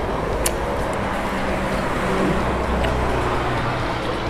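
Engine of a motor vehicle running close by, a low rumble that swells from about a second and a half in and eases near the end, with a single light click of tableware early in the sound.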